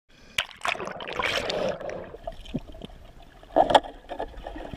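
Lake water splashing and sloshing over a spear-mounted action camera as it is pushed through the surface and dips underwater, in irregular bursts with a louder splash about three and a half seconds in.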